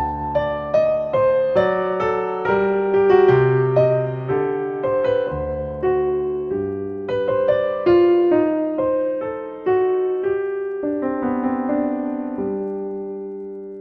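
Background solo piano music: a gentle melody of single notes over chords, each note struck and left to ring and fade.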